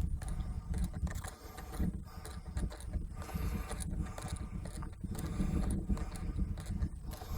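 Wind buffeting the microphone in a low, uneven rumble, with scattered small metallic clicks and scrapes of an Allen wrench working the paramotor's upper harness bolts loose.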